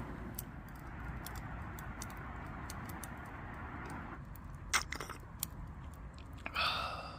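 A charcoal fire in a small fire pit crackling with scattered sharp ticks, over a steady hiss that drops away about four seconds in. A few light metallic clinks come in the second half.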